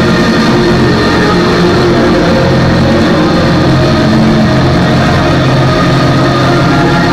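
Loud, dense music with sustained distorted tones held over a noisy wash and no clear beat, a drone-like rock passage.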